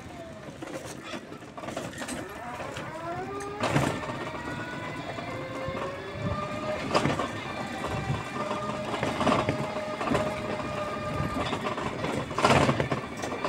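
Small motorcycle engine of a motor tricycle running under way, its pitch rising in the first couple of seconds and then holding steady, with a few loud knocks or rattles from the vehicle, the loudest near the end.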